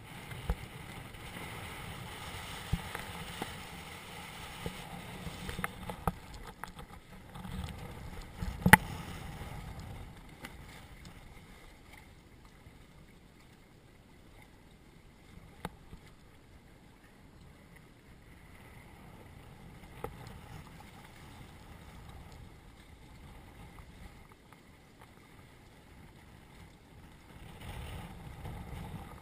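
Water sloshing and splashing against a Hobie Cat catamaran's hull as it sails through chop, with small knocks and clicks and one sharp knock about nine seconds in. The splashing is busier at first, dies down in the middle and picks up again near the end.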